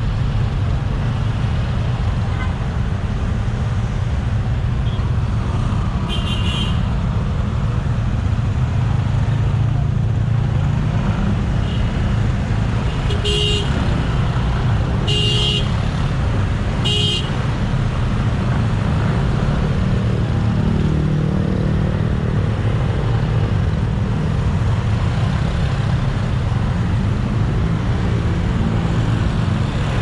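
Motorcycle riding through city traffic, with a steady low rumble of engine and wind. Short vehicle horn beeps sound once about six seconds in and three more times near the middle.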